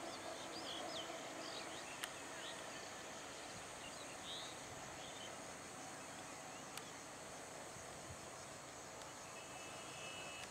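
Quiet trackside ambience: a steady faint hiss with a few short bird chirps in the first half. No train is clearly heard.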